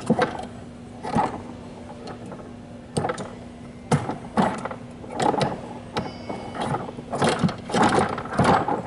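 Irregular rattling and knocking of a hands-on exhibit's ball mechanism being worked, with balls clattering through it in short bursts, over a steady low hum.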